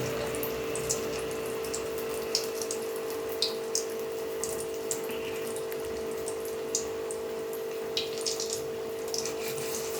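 Hot oil in a kadai sizzling with scattered sharp pops as jackfruit-seed vadai fry, over a steady hum.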